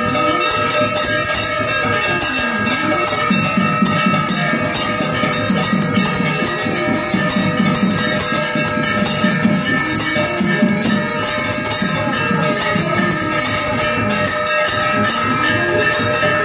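Temple bells ringing continuously together with devotional music, as during the lamp-waving of an aarti.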